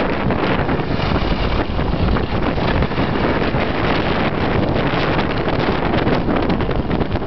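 Wind buffeting the microphone of a camera carried downhill by a skier: a loud, steady rush of noise with gusty flutter.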